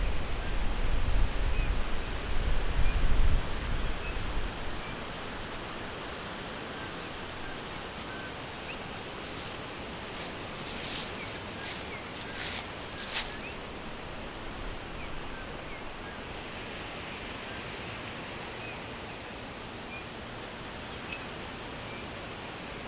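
Forest ambience: a steady hiss with scattered short, high bird chirps. A low rumble fills the first few seconds, and a handful of brief rustling noises come about halfway through.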